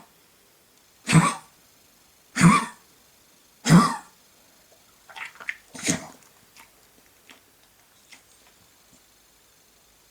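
Goldendoodle-terrier mix dog coughing with kennel cough. Three loud coughs come about a second and a quarter apart, then a few weaker ones and a fourth loud cough about six seconds in, trailing off into faint small sounds.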